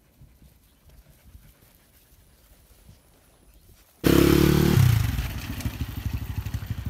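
Faint outdoor background, then about four seconds in a motorcycle engine cuts in loud. Its pitch drops after a moment and it settles into a rapid low pulsing as the bike rides on a dirt track.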